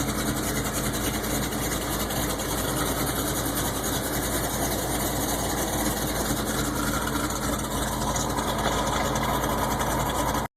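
Chevrolet L31 Vortec 350 V8 with a Summit K1107 cam, exhaling through a Thrush Turbo muffler, idling steadily after a cold start; the idle is rough. The sound cuts out abruptly near the end.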